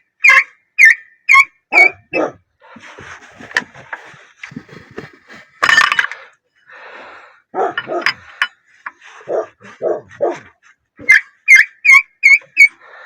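Squeaking from a VAZ 2106 engine as its crankshaft is turned by hand with the timing chain off. There are two runs of about five short, sharp squeaks, one at the start and one near the end, with clatter and knocks between them. Because only the crankshaft is turning, the squeak does not come from the chain.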